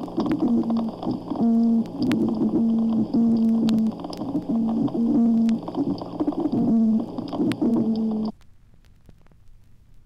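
Underwater chorus of some sixty toadfish: many overlapping deep tones, each about half a second to a second long, over a background crackle of snapping shrimp. The recording cuts off suddenly about eight seconds in, leaving faint hiss.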